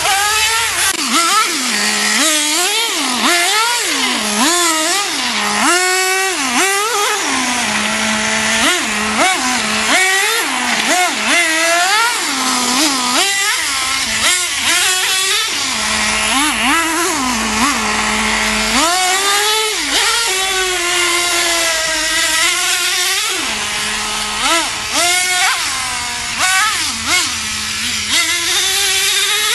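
Traxxas T-Maxx 2.5 RC monster truck's small two-stroke nitro engine revving hard again and again, its high-pitched note rising and falling with the throttle. It drops back to a steady idle several times in between.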